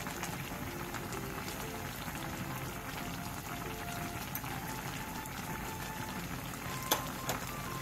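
Jeonjjigae (spicy Korean stew of leftover pancakes and aged kimchi) boiling steadily in a pot, a continuous bubbling, with two sharp clicks about half a second apart near the end.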